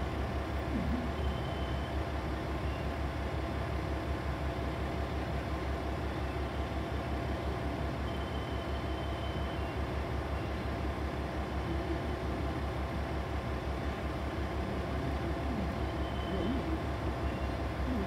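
KiHa 40 diesel railcar's engine idling: a steady low throb with a fast, even pulse and a thin steady hum above it.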